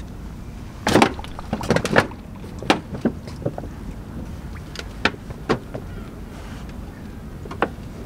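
Knocks and clicks of a camera tripod carrying a camera with a long lens being set down and handled on a plank platform. A quick cluster of clunks comes about a second in, followed by single sharp clicks spaced a second or so apart.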